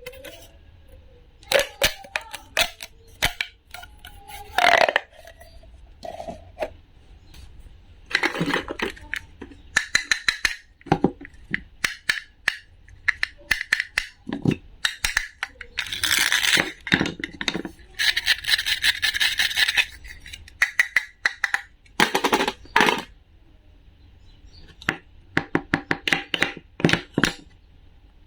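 A run of sharp clicks, taps and light knocks from small hard objects being handled, broken by a few longer stretches of scraping or rustling noise.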